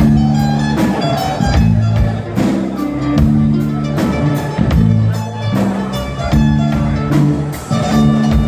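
Live band playing an instrumental passage: electric bass and guitar chords over a drum kit keeping a steady, quick beat.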